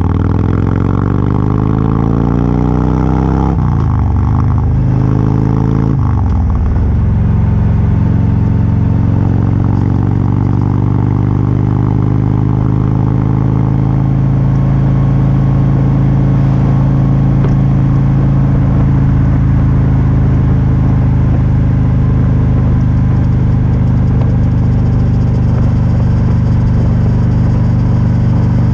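Motorcycle engine accelerating up through the gears, its pitch rising with two brief drops at gear changes about four and six seconds in, then holding a steady note at highway cruising speed.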